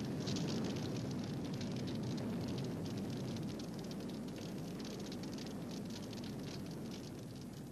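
Animated-show sound effect of fire crackling over a low rumble, slowly dying away.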